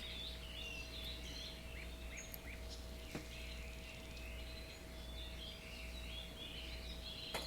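Faint birdsong: many small birds chirping in quick, short calls, over a steady low background hum.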